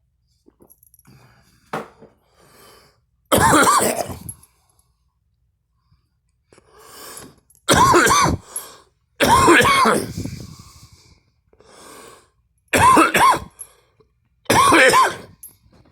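A person coughing and gagging in five loud, harsh fits, each lasting about half a second to a second, with strained, retching voice sounds in them and quieter sounds between.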